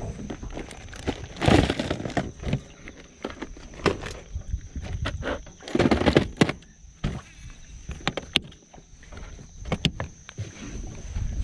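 Irregular knocks, clunks and clicks of fishing gear being handled in an aluminium boat, with two louder rushing noises, about a second and a half and about six seconds in. A faint steady high whine sits underneath.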